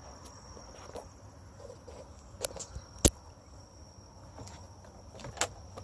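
Crickets trilling steadily at a high pitch, with a few sharp clicks, the loudest about three seconds in.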